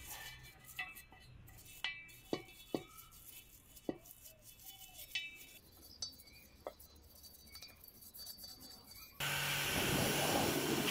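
A brush scrubbing an aluminium alloy wheel, its hard bristles and handle knocking the rim in sharp clinks that ring briefly. About nine seconds in, a loud steady spray of water starts hitting the wheel, with a low steady hum beneath it.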